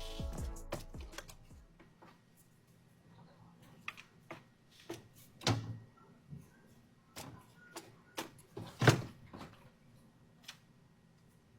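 Music fading out over the first two seconds, then scattered light clicks and knocks, the loudest about nine seconds in.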